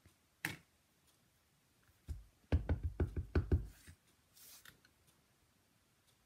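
A black Memento ink pad patted quickly onto a clear stamp on an acrylic block to ink it: a rapid run of about eight soft, dull taps over a second and a half. A single click comes about half a second in, and a knock shortly before the taps.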